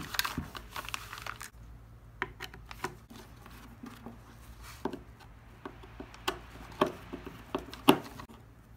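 Handling noises from a chainsaw's plastic clutch cover and chain brake parts being turned and worked by hand on crumpled paper: scattered clicks and taps, with rustling in the first second or so and the sharpest knock near the end.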